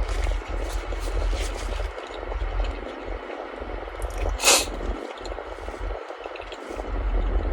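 Close-up chewing and wet mouth sounds of someone eating a Korean corn dog, with scattered small clicks and one sharper, louder crunch or smack about four and a half seconds in, over a steady low rumble.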